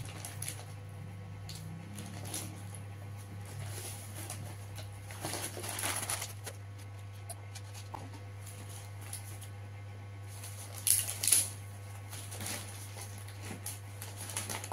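Close-up eating sounds: chewing and mouth noises while eating rice by hand, with crinkles and rustles of paper food wrappers. A longer rustle comes about five seconds in, and a pair of sharp crinkles about eleven seconds in are the loudest. A steady low hum runs underneath.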